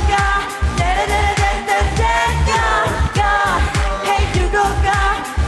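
A K-pop dance-pop song playing, with a steady beat and a woman's voice singing the chorus.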